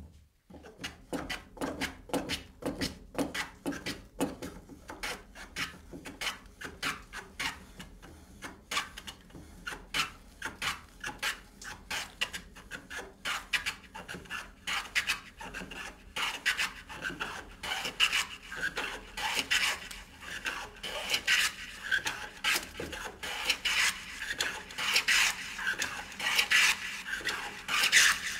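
Hand plane shaving along a board's edge in repeated strokes, each a short rough hiss of the blade cutting wood; the strokes come faster toward the end.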